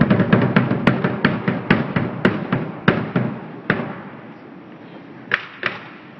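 Rapid sharp bangs, dense at first, then thinning out to a few single bangs and growing quieter after about three seconds.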